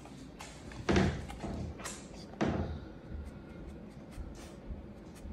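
Two heavy thumps about a second and a half apart as a large fluffy dog jumps up against a wire pen gate, followed by a few faint clicks.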